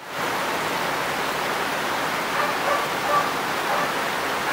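Heavy rain falling steadily, a dense even hiss that fades in at the very start.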